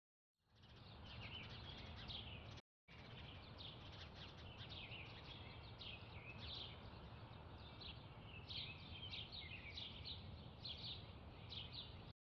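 Many small birds chirping and trilling over a low, steady outdoor rumble. The sound fades in just after the start and drops out briefly once, a couple of seconds in.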